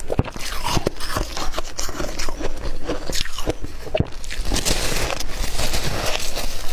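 A person biting and chewing crunchy shaved ice, a dense run of crackling crunches close to the microphone.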